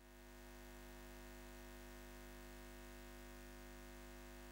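Faint, steady electric hum with a low buzz, rising slightly over the first second.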